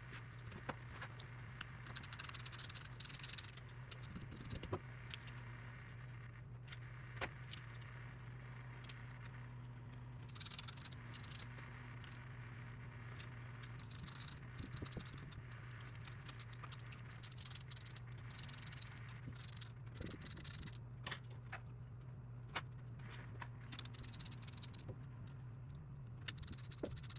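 Metal clinks and rattles of hand tools and bolts as a rear cover is fitted to a Chevy 12-bolt differential, with about four short bursts of rapid clicking spread through, over a steady low hum.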